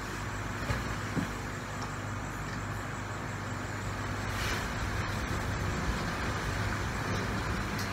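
Steady low hum and hiss of room noise, with two faint knocks about a second in.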